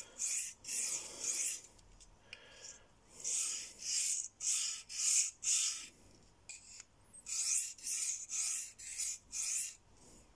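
A steel pocket-knife blade stroked by hand across a 600-grit DMT diamond sharpening plate with light pressure: a series of short scraping strokes, about two a second, pausing a little past the middle. These are light finishing passes on alternate sides of the edge, to smooth it.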